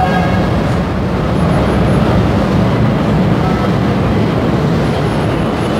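First-generation BN ACEC light rail train standing at the platform with its doors open, its on-board equipment making a steady low hum.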